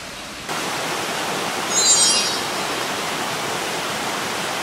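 Shallow mountain stream running over rocks, a steady rushing of water that comes in about half a second in. About two seconds in, a brief high chirp sounds over it.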